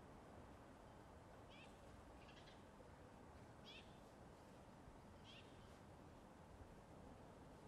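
Near silence: a faint steady outdoor background with four brief, faint high-pitched chirping calls, unevenly spaced.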